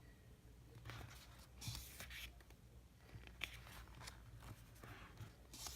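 Faint rustling and a few sharp clicks of photobook pages being turned and handled.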